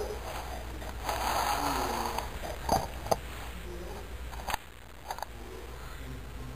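A ferret sniffing close up at the microphone, in short breathy snuffles, with a few sharp clicks and taps in the middle.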